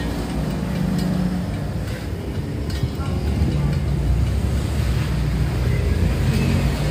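Metal lathe running steadily with a motorcycle alloy wheel spinning in its chuck, a low continuous rumble. The wheel is being spun against a dial indicator to check that it runs true after straightening and crack welding.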